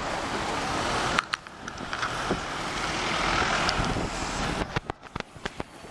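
Roadside traffic noise: a vehicle passes close by, swelling over a few seconds and fading away. A few sharp clicks and knocks follow near the end.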